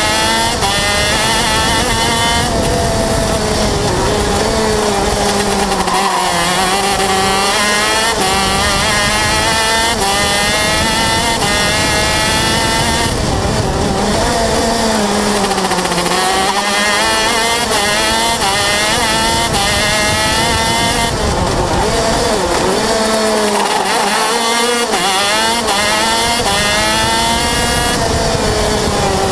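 125cc KZ shifter kart's two-stroke single-cylinder engine, heard onboard at racing speed, climbing in pitch again and again as it pulls through the gears, then dropping away several times for the corners.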